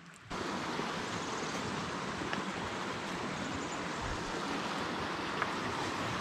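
Steady rushing of creek water running between rocks, cutting in abruptly just after the start, with a couple of faint ticks.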